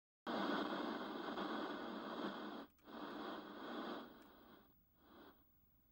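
Faint TV static hiss that cuts out briefly about two and a half seconds in, then fades away about four seconds in.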